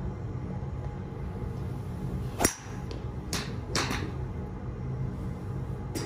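A Royal Collection BBD306V 5-wood fairway wood strikes a golf ball off a range mat: one sharp crack about two and a half seconds in. Two fainter clicks follow about a second later, over a steady low hum.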